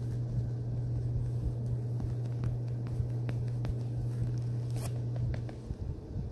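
Sticky foam squishy being squeezed and peeled close to the microphone, giving small crackling, tacky clicks, with a steady low hum underneath that drops away about five seconds in.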